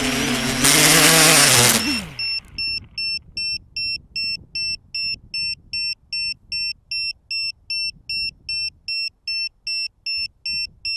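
V-tail multirotor's electric motors whining, a loud rushing noise for about a second, then the motors spin down with a falling pitch about two seconds in. An electronic beeper then sounds steadily, about two high beeps a second.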